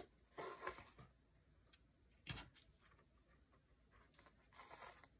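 Faint handling sounds of a fabric-covered book board being moved and pressed on a cutting mat: a few soft rustles and a light knock about two seconds in, otherwise near silence.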